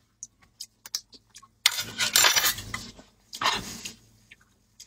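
Close-miked eating sounds: scattered small mouth clicks of chewing, with two longer, louder noisy stretches, one from about one and a half seconds in and a shorter one about three and a half seconds in.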